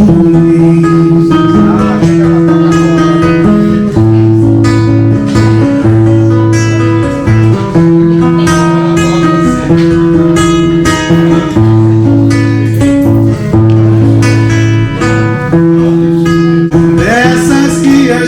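Music: strummed guitar chords over a steady bass line, the bass notes changing every second or two.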